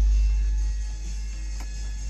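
A steady 50 Hz sine-wave test tone played through the truck's subwoofer inside the cab. It dips lower about a second in and starts coming back up near the end.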